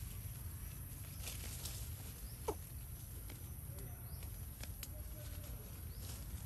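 A monkey gives one short squeal that falls quickly in pitch, about two and a half seconds in, followed by a few fainter squeaks, over a low steady rumble and scattered faint clicks.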